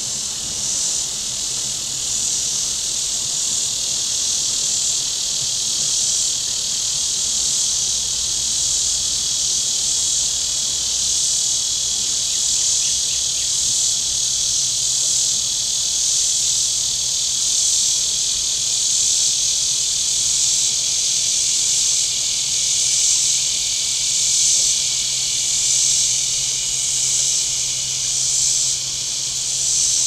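Chorus of cicadas buzzing in a loud, continuous high drone that swells and fades about once a second.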